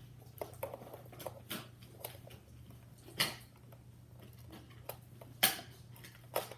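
Light clicks and taps of plastic toy rifle parts and packaging being handled, with two louder knocks, about three and five and a half seconds in, over a steady low hum.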